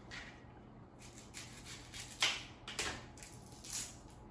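Dry, papery onion skin crackling and rustling as it is peeled off a whole onion, in several short crackles, the loudest a little past the middle.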